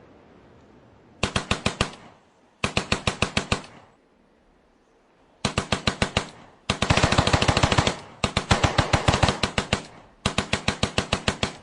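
Automatic gunfire in six bursts of rapid fire, about ten shots a second, each burst lasting about a second, with short pauses between them.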